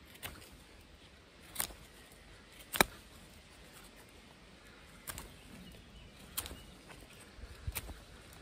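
Knife blade cutting into a wooden stick while whittling: a few short, sharp cuts at irregular gaps, the loudest about three seconds in.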